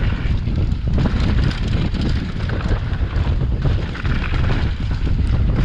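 Wind rushing over the microphone with the rumble and rattle of a downhill mountain bike riding fast over a rough trail, with scattered knocks from the bumps.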